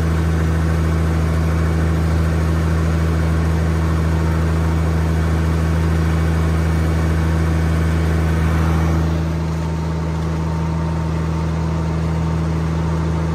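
Heavy diesel engine running steadily at a constant speed, a little quieter about two-thirds of the way in.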